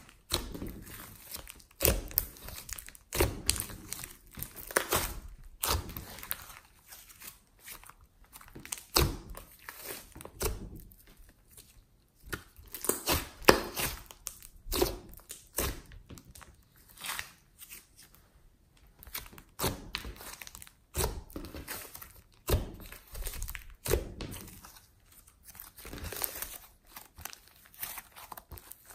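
Glossy slime being squeezed, stretched and folded by hand. It makes irregular sticky clicks, pops and crackles as air pockets in it burst and its surface tears apart.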